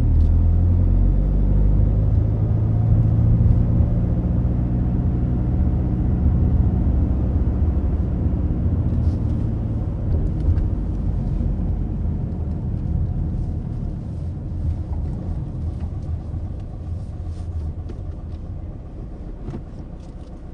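Ford Focus diesel heard from inside the cabin while driving: a steady low engine and road rumble. It grows gradually quieter over the second half, with a few faint ticks.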